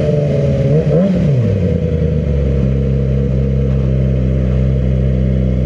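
Yamaha R6 inline-four sport bike engine running, with a quick rev that rises and falls about a second in, then holding a steady note, heard from a helmet-mounted microphone.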